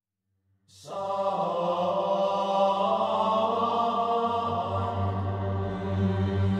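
Silence, then background music that starts abruptly just under a second in, built of steady, sustained tones.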